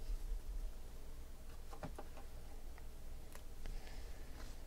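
Faint, scattered clicks and light rustles of a stack of Panini Prizm football trading cards being handled and flipped through in the hands.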